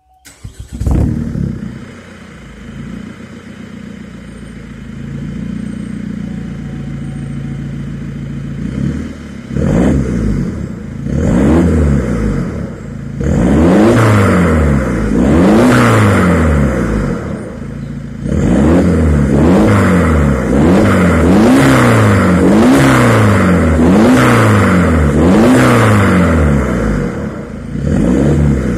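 Opel Astra J GTC's remapped 1.7 CDTI four-cylinder turbodiesel, with its particulate filter and rear silencer removed, heard at the tailpipe. It starts up about a second in and idles for several seconds. It is then revved in a long run of quick throttle blips, each rising and falling, about one a second.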